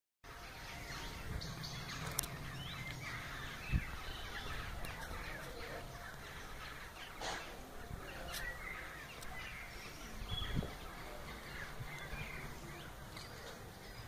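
A large flock of crows calling overhead, many short calls overlapping in a continuous chatter. A low rumble runs underneath, and a sharp thump comes a little under four seconds in.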